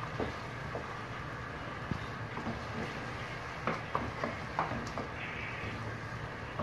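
Wooden spatula stirring fried tomatoes, onion and meat in a metal saucepan, knocking lightly against the pot a few times, over a steady low hum.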